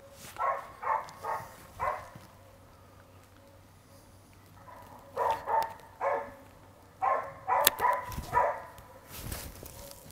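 Hunting dog barking at bay over a cornered wild boar, in three bouts of quick barks with a quiet gap of about three seconds after the first bout, coming from the shooting simulator's film soundtrack.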